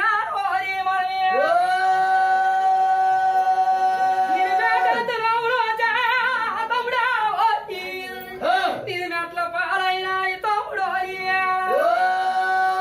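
A single voice singing without instruments, in the style of a Telugu folk storytelling song. It holds long high notes, the first for about three seconds, with a wavering, ornamented passage in the middle and another long held note near the end.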